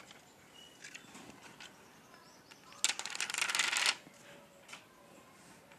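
Crinkly rustle of a plastic glitter-sticker sheet being handled: a few light ticks, then one burst of crackling lasting about a second near the middle.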